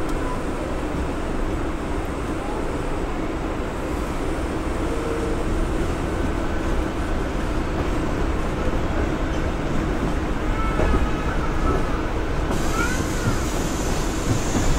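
Mumbai suburban electric local train running, heard from on board at the open door: a steady rumble of wheels on rail. Late on, a few short metallic squeals rise and fall as the train arrives at the platform, and a hiss grows louder near the end.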